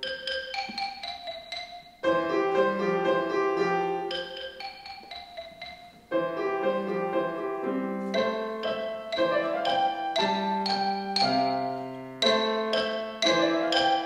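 Marimba and piano playing a duet: mallet strikes on the marimba's wooden bars over piano notes. The music gets suddenly louder about two seconds in and again about six seconds in.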